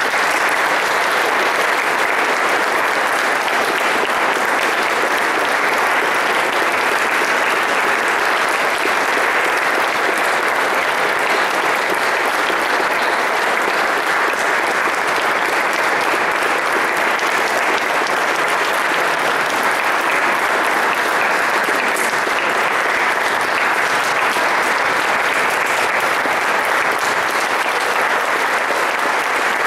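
A concert audience applauding, the clapping loud and steady throughout.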